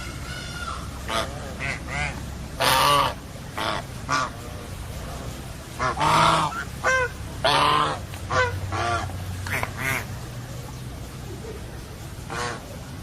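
Domestic geese honking in a run of short, separate calls at irregular intervals, several of them loud.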